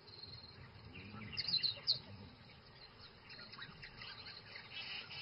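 Faint high chirping and twittering calls of African wild dogs greeting a returning hunting party, with a cluster of sharper chirps between one and two seconds in.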